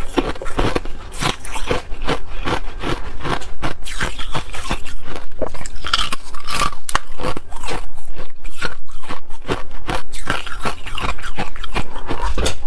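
Thin ice sheets being bitten and chewed right at a lapel microphone: a rapid, continuous run of sharp crunches and crackles.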